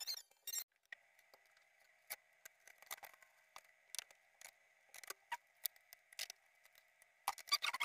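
Scattered light clicks and knocks of studio gear (stands and lights) being handled and set down, over a faint steady high whine. The clatter grows denser near the end.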